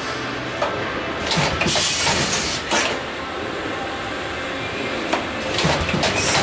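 JW CCM-MV automatic cartoning machine running, a steady mechanical clatter with short clicks and knocks from its moving parts. A hiss lasting about a second and a half comes in about a second in.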